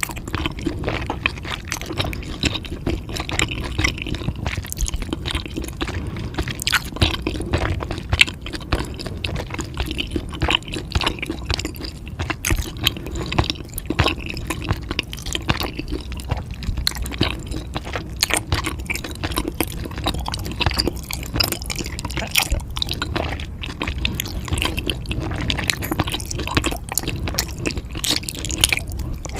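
Close-up wet chewing and mouth sounds of someone eating spicy food: a continuous run of smacks, squishes and small clicks.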